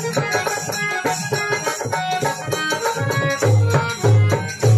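Instrumental passage of a Rajasthani folk bhajan: harmonium melody over dholak drumming and the clack of wooden kartal clappers, with the strummed drone of a Marwari veena (tandura). Heavy deep drum strokes come in during the last second or so.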